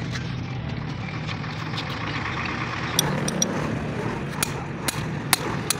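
Hammer blows on the pinion flange and wrench of a truck differential: about half a dozen sharp, ringing metal strikes in quick succession from about halfway through, over a steady low hum.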